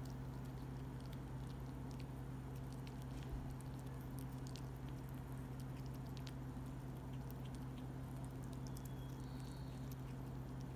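Pomeranian puppy nibbling and licking a green salad leaf: faint, irregular small wet clicks over a steady low hum. A short faint high chirp about nine seconds in.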